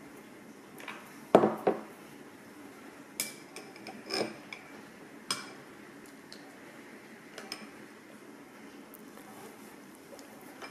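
A drinking glass knocked down onto a table about a second and a half in, then a long spoon clinking against the glass several times as slush is scooped from it.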